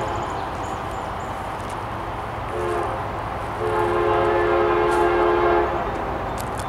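Locomotive horn sounding a chord of several tones, first in a short blast and then in a longer, louder one, over the steady low rumble of a train.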